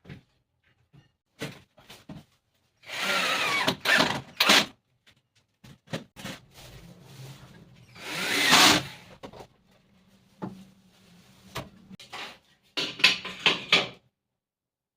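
A power tool working wood in short bursts of about one to two seconds, with scattered knocks between them and a run of quick strokes near the end.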